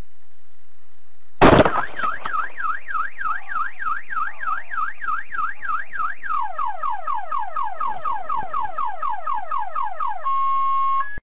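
A sudden loud crash, then a car alarm sounding. The alarm warbles up and down about three times a second, switches to a quick run of falling sweeps, then holds a steady tone, and it cuts off abruptly near the end.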